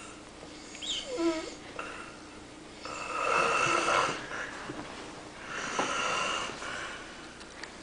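Person snoring in sleep: three noisy snoring breaths, about every two and a half seconds, the first with a brief wavering squeak.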